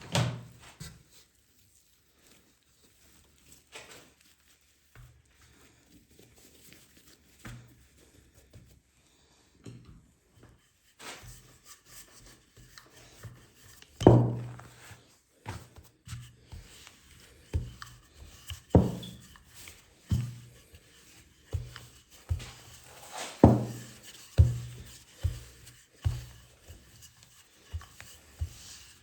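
Kitchen work on a wooden surface: irregular knocks and thuds with some rubbing, sparse at first and then about one a second through the second half.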